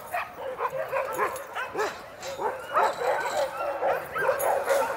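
A yard of sled dogs barking and yipping together, many short calls overlapping without a break.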